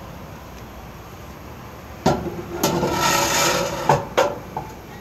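Stainless steel strainer basket being slid into and seated in the steel housing of a Vactor 2100 micro strainer: a sharp knock about two seconds in, about a second of metal scraping, then two quick knocks.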